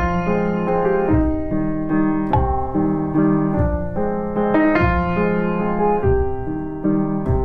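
Background piano music: notes and chords struck about once a second, each ringing and fading.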